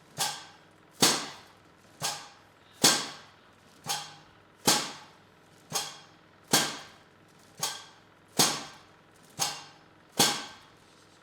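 A steady series of sharp knocks, about one a second, alternating louder and softer, each with a short ringing tail: percussive strikes during chiropractic treatment.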